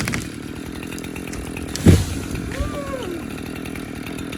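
Chainsaw engine idling steadily, with one sudden loud thump about two seconds in.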